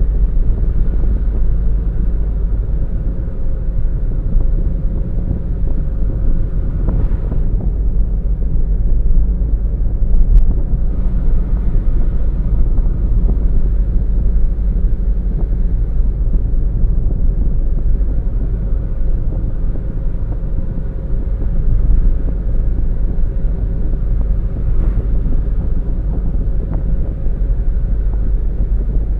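A car driving steadily along a road, heard from on board: a constant low rumble of road and engine noise with a faint steady hum and a few brief faint ticks.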